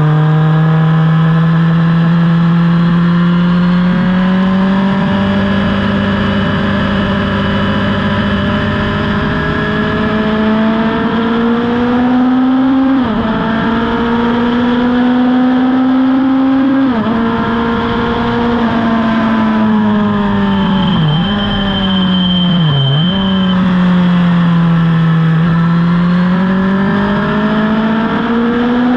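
Racing motorcycle engine running at speed: the revs climb steadily, drop sharply at two gear changes about halfway through, then fall with two quick dips as it slows for a bend, and climb again near the end.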